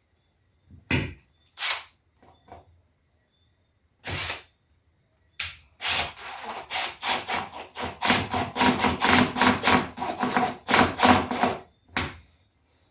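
Hand-tool or drill work on wiring hardware: a few separate knocks, then about six seconds of rapid, repeated grinding strokes, roughly four a second, stopping shortly before the end.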